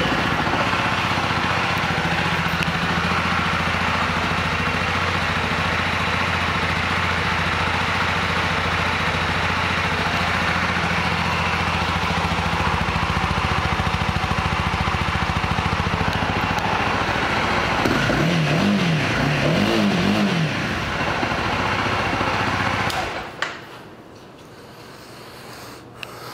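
2015 Honda CB300F's single-cylinder engine idling steadily through its stock exhaust, revved up and back down twice late on, then switched off near the end.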